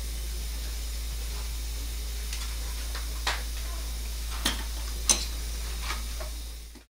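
Steady low hum with four short, sharp clicks in the second half, the loudest a little past the middle; the sound cuts out abruptly just before the end.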